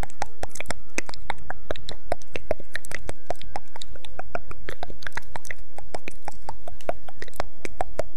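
Close-up ASMR trigger sounds: a rapid, irregular stream of sharp clicks and taps right at the microphone, several a second.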